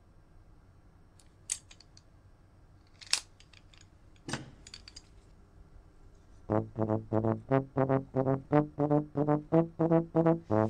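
A few sharp metallic clicks from a small metal medical instrument being handled, then, from about six and a half seconds in, a quick staccato tune of about fifteen short low notes on a brass instrument such as a trombone or tuba.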